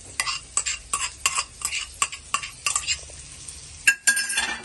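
Spatula scraping and stirring fried meat around a paella pan in quick strokes, several a second, over a steady frying sizzle, as the just-added sweet paprika and saffron are worked in. A louder scrape with a brief metallic ring near the end.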